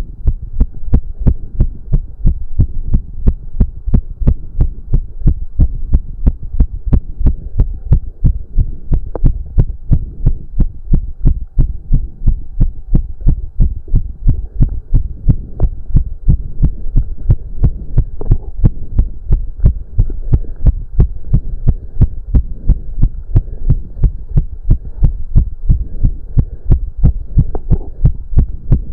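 A man's heart beating fast and steadily during a cardio workout: evenly spaced, loud, low thumps several times a second, a racing heart under exertion.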